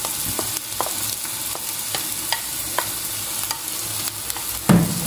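Chopped mushrooms sizzling in a frying pan with butter, onion and garlic as they are scraped in off a plate and stirred with a plastic spoon, the spoon clicking against plate and pan about twice a second. A louder knock near the end.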